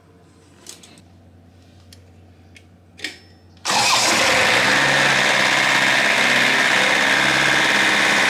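A couple of faint clicks, then about three and a half seconds in the motor of a center-pivot irrigation system starts abruptly and runs loud and steady.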